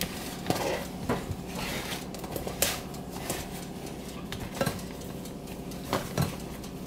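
Hands kneading bread dough in a plastic shoebox-type tub, with irregular knocks and rattles of the plastic container against the countertop; the sharpest knocks come about two and a half seconds in and again near six seconds.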